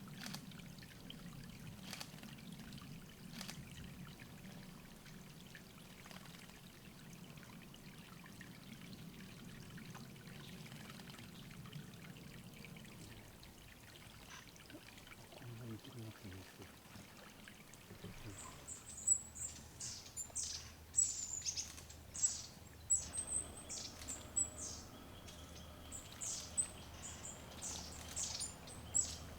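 Water trickling at a forest bathing and drinking pool, fading out about halfway; then, from about two-thirds in, a small songbird gives a rapid run of short, thin, very high-pitched calls.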